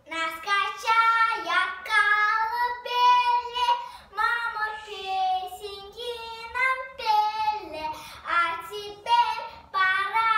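A young girl singing a song about her mother without accompaniment, in phrases of held, high notes.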